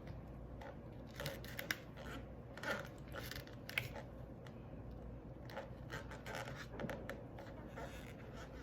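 Faint, irregular scratching and rustling of curly wig hair being parted and sectioned off at the front, with a few sharper scratches over a low steady hum.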